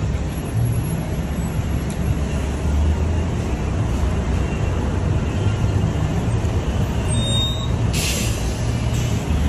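Steady low rumble of roadside traffic, dominated by a heavy diesel vehicle such as a bus or truck running close by, with a short hiss about eight seconds in.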